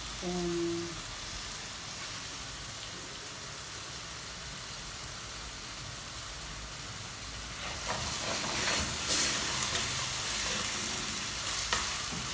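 Grated tomato and ground spices frying in oil in a pan, a steady sizzle. From about eight seconds in, a spoon stirring and knocking against the pan adds a series of clicks.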